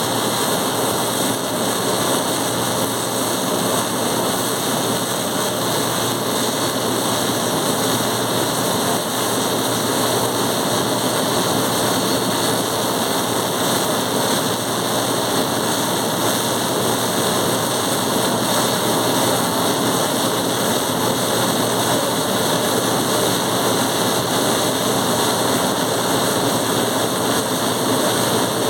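Steady, unbroken noise of welding work.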